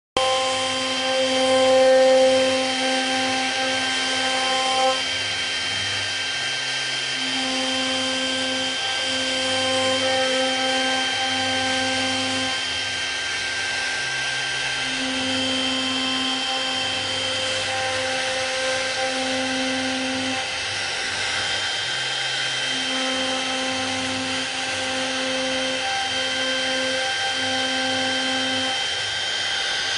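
FET-TP2191 CNC milling-engraving machine running: a steady high spindle whine, with lower motor tones that change pitch every second or two as the axes move.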